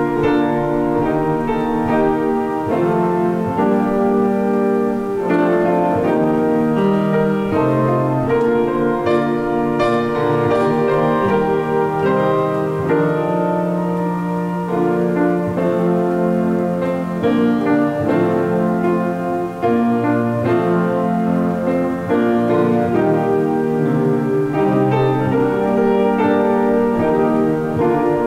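Instrumental keyboard music, piano-like, playing slow chords with long held notes.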